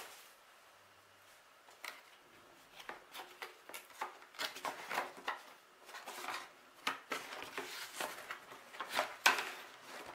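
Hands handling a cardboard box, opening and pushing its lid and sides: a run of short scrapes, rubs and light knocks of cardboard. It starts about three seconds in and has its loudest knock near the end.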